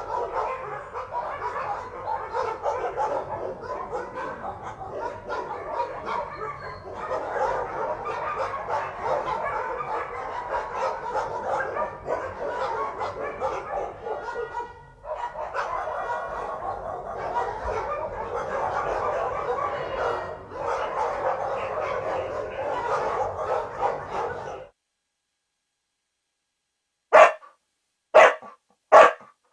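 Dogs barking and yipping in a dense, continuous run for about 25 seconds, with a short dip in the middle. After a brief silence comes a single dog's three loud barks about a second apart.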